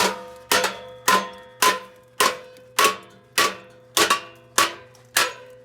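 Hammer striking a metal exhaust pipe in a steady rhythm, a little under two blows a second, each blow ringing briefly.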